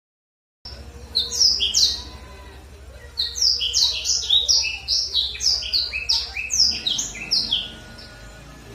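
Black-throated canary (blackthroat) singing, a loud song of quick, high, downward-sweeping notes. It begins with a short burst about a second in, then, after a pause, a longer run of about four seconds at roughly four notes a second.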